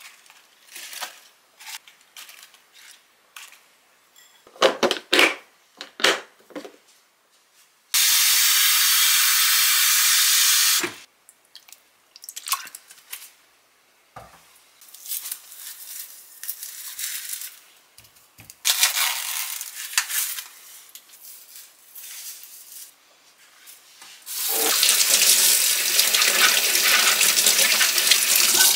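Kitchen tap running into a stainless steel sink three times: a steady three-second gush about eight seconds in, a short one around the twentieth second, and a steady run over the last four seconds as an onion is rinsed under it. Between them come light knocks and clinks of a plastic container and a glass bowl handled on the counter, and small splashes of spinach leaves being washed in water.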